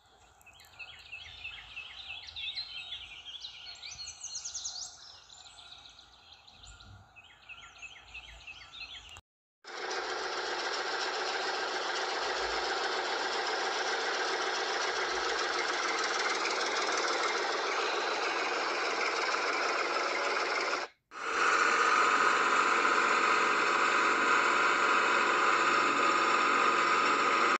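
Tractor engine sound effect: a steady, knocking mechanical engine run that starts about ten seconds in, stops briefly near twenty-one seconds and comes back louder. Before it, high repeated chirping over a quiet background.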